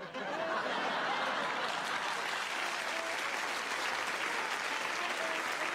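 Studio audience applause that breaks out suddenly and keeps going steadily, with a saxophone playing faintly underneath.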